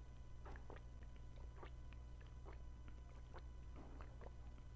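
A person swallowing water in gulps from a plastic bottle, picked up close by a lapel mic: a run of soft gulps, roughly two a second, over a steady low hum.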